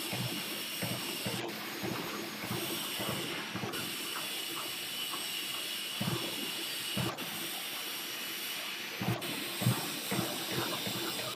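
Factory workshop noise: a steady hiss with irregular short knocks and clatter, broken by several abrupt cuts.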